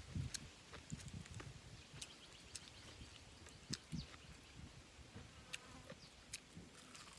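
A person chewing and eating grilled meat with their hands: scattered sharp wet mouth clicks and smacks, with soft low thuds of meat being pulled apart.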